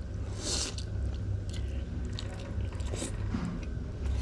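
A person slurping and chewing a mouthful of stir-fried noodles, with a short hissing slurp about half a second in and another near three seconds, and small wet mouth clicks in between.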